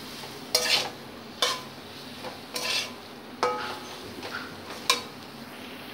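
Metal spatula scraping and stirring thick mashed banana flower around a metal wok, about five scrapes, while sugar is mixed in. A low frying sizzle runs underneath.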